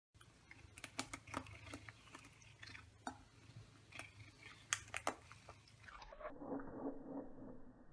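A cat chewing on the bristles of a plastic hairbrush: irregular sharp clicks and crunches of teeth on the bristles. In the last two seconds the sound turns duller and muffled.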